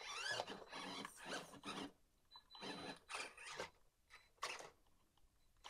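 Electric drive motor and gearbox of an FMS FCX24 Unimog 1/24-scale RC crawler whining in high gear. It comes in three throttle bursts, the first two about a second long and a short blip near the end, with the pitch rising and falling in each.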